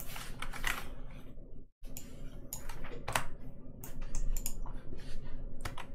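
Irregular clicking and tapping of a computer keyboard and mouse, with a brief cut to silence just before two seconds in.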